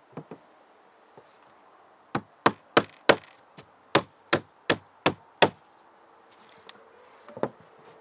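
Claw hammer driving nails into an OSB sheet. There are two light taps, then a run of about ten sharp strikes at roughly three a second, and one more blow near the end.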